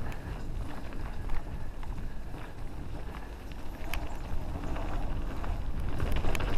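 Wind buffeting a moving camera's microphone, a steady low rumble with a thin hiss above it, and a few sharp clicks about four seconds in and again near the end.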